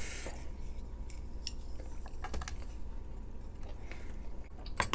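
A few light clicks and taps of eating utensils against a takeout food container.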